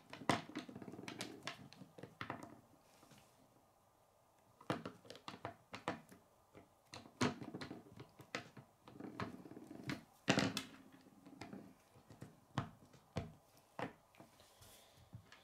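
Plastic K'nex pieces clicking into each other and knocking on a wooden tabletop as they are fitted and moved, in irregular clicks and taps. A few louder knocks stand out, one near the start and one about ten seconds in, with a quieter stretch around three to four seconds.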